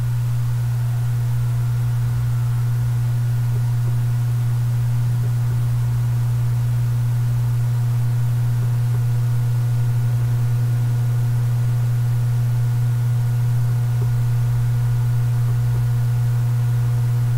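Loud, steady low electrical hum with faint higher tones above it, unchanging throughout.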